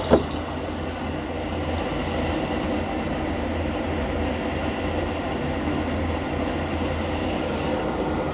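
A steady low mechanical hum with a hiss over it, and a single sharp knock right at the start.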